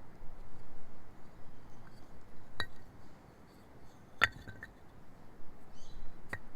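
Three sharp clinks of hard objects, each with a brief ring, spaced about two seconds apart over a steady low hiss.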